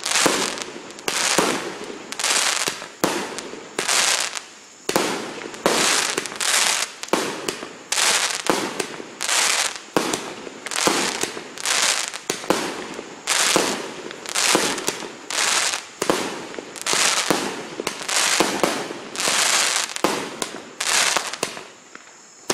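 A 68-shot assorted fireworks cake with 0.8 to 1.2 inch tubes firing in steady succession, about one shot a second, each a sharp report that trails off in a hiss.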